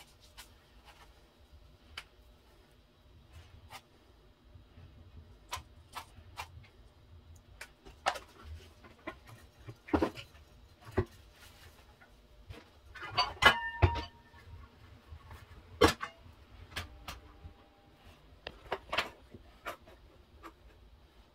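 Scattered clicks and knocks of kitchen pots and utensils being handled. About thirteen seconds in comes the loudest, a cluster of knocks with a brief ringing metallic clink.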